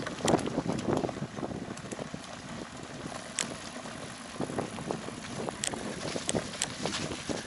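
Mountain bike ridden along a dirt trail strewn with leaves: tyres rolling over the ground, wind on the microphone, and frequent sharp clicks and rattles as the bike jolts over bumps.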